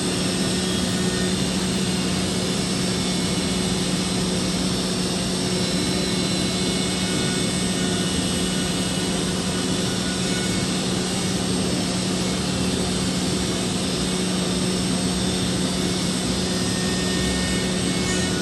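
5-axis CNC machining centre running a slow finishing pass with a ball-nose end mill: a steady whir of spindle and cutting over a constant low hum.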